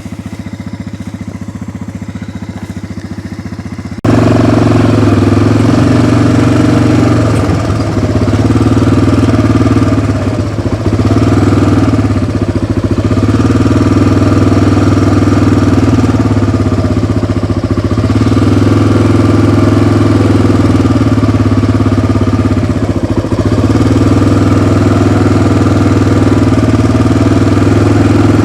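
Engine of a small off-road riding vehicle idling, then from about four seconds in running much louder and steadily as it drives on, with a few brief easings of throttle.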